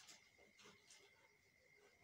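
Near silence with a few faint swishing strokes of a whiteboard eraser wiped across the board in the first second, over a faint steady high tone.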